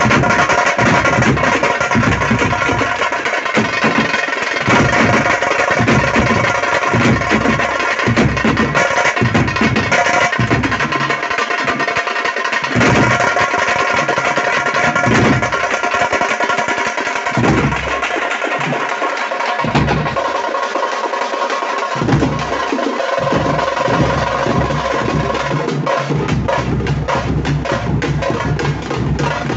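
Tamte frame drums played hard in a fast, dense rhythm, with a steady droning tone held over the drumming.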